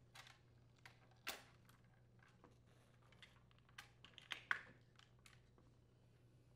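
Faint scattered clicks and taps of a wire shutoff arm and the plastic ice maker housings being handled, as the arm is unclipped from one Whirlpool ice maker and fitted onto the new one. There is one sharper click about a second in and a small cluster of clicks around four and a half seconds.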